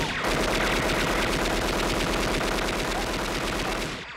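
Long continuous burst of Thompson submachine gun (tommy gun) fire. The shots come so fast that they run together, and the burst stops just before the end.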